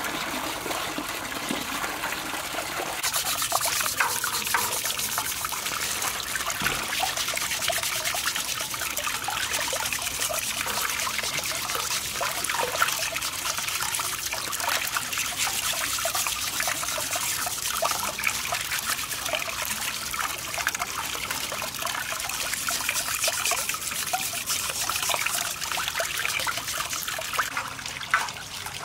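Tap water running in a steady stream from a pipe into a metal basin full of water, with small splashes as cow legs are scrubbed by hand in it. The stream gets brighter and a little louder about three seconds in.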